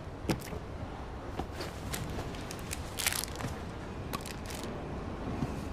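Scattered faint clicks and short rustles over a low background hiss, with a sharper click about a third of a second in and a longer rustle about three seconds in.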